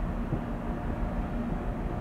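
Steady low rumble of ship diesel engines across harbour water, with an even droning hum.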